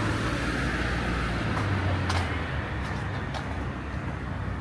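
Low engine rumble of a motor vehicle going by, fading about two seconds in, over a steady hiss, with a few light clicks after it.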